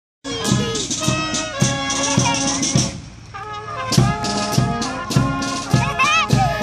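Marching brass band playing: trombones, trumpets and clarinets over a steady bass drum beat. The music drops away briefly about three seconds in, then comes back in full on a drum stroke.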